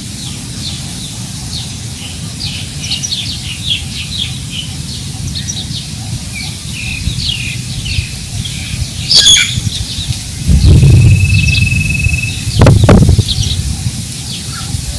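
Many small birds chirping in quick, repeated short notes over the low rumble of wind buffeting the microphone. A loud, sharp bird call rings out near the middle, and stronger wind gusts come in about two-thirds of the way through.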